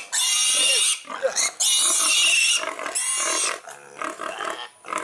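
Pig squealing in distress as it is handled: three long, shrill squeals of about a second each, followed by quieter, shorter sounds near the end.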